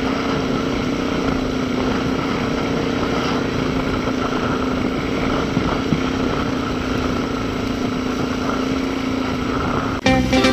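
Dirt bike engine running at steady revs while being ridden, heard from the rider's helmet. Guitar music cuts in abruptly near the end.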